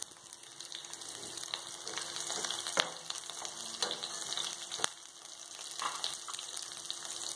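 Sliced onions frying in hot oil in a steel kadai for a tempering of mustard seeds and urad dal, with a steady sizzle and scattered sharp pops. A ladle stirs through the oil partway through.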